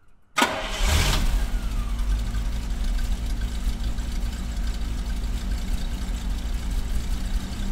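Daimler Double Six's carburetted pre-HE V12 engine starting about half a second in, then settling into a steady idle. It is running on only nine of its twelve cylinders.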